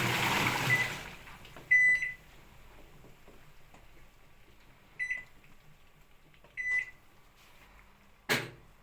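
Washing machine's running noise dies away in the first second, then its control panel gives three short electronic beeps a few seconds apart. Near the end a single sharp click, the door lock releasing.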